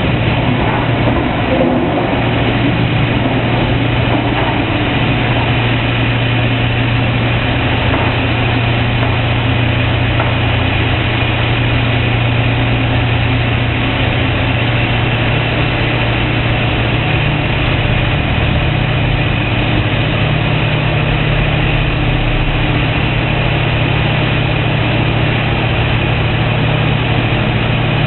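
Heavy diesel engines of excavators working at a construction site, a steady low drone.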